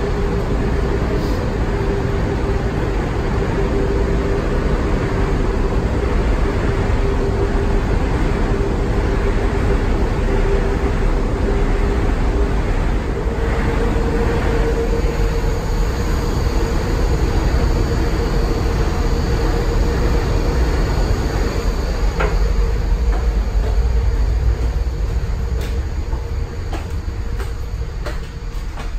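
Steady low rumble and hum of a train ferry's machinery in the enclosed train deck, the hum stepping slightly higher about halfway through. A few short clicks near the end.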